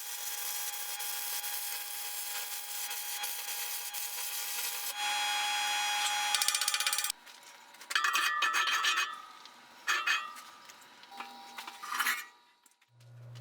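Electric arc welder laying a bead on a steel hinge post: one steady run of about seven seconds that stops suddenly, then three shorter bursts of welding.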